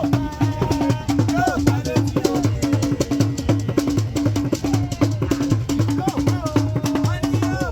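Music with a steady drum beat, a shaker and singing voices.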